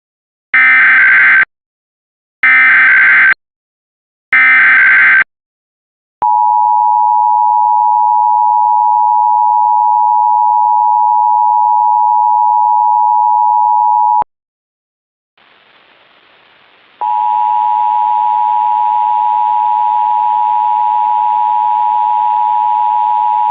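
Emergency Alert System SAME header: three short buzzing data bursts about a second apart, which open a Required Monthly Test. They are followed by the EAS two-tone attention signal, a loud steady dual tone held for about eight seconds. After a pause, a hiss comes up and a second two-tone attention signal starts over it.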